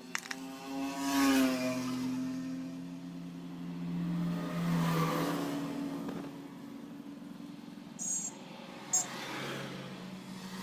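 Small single-cylinder motorcycle engine running, revved up and back down twice. Two short sharp clicks near the end.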